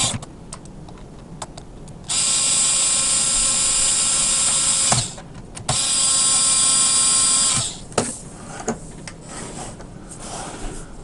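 Cordless electric screwdriver running in two bursts, one of about three seconds and one of about two, with a steady motor whine as it drives screws into a plastic e-bike battery case. Light clicks and knocks from handling the case come between and after the bursts.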